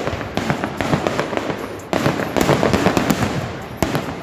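Aerial fireworks going off in quick succession overhead: several loud bangs, each followed by crackling that fades before the next.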